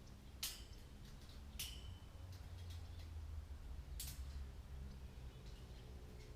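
Three sharp clicks spread over several seconds, the second with a brief ring after it, over a faint low hum.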